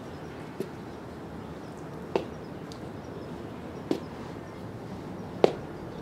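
Four sharp knocks at an even, slow pace, about one every second and a half, the last the loudest, over faint steady background noise.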